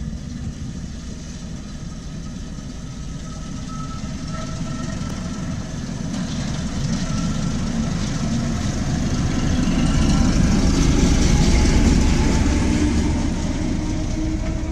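BR Class 08 diesel shunter D3190, with its English Electric six-cylinder engine, running at low speed as it hauls empty coaches out of the station. The low engine rumble grows louder as the locomotive draws level, loudest about ten to twelve seconds in.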